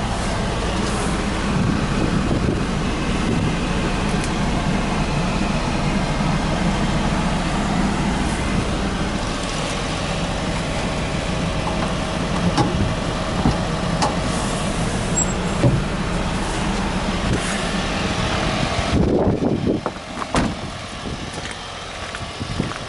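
Honda Acty mini truck's small engine idling steadily, with a low even hum and a few light handling clicks; the engine sound drops away about three-quarters of the way through.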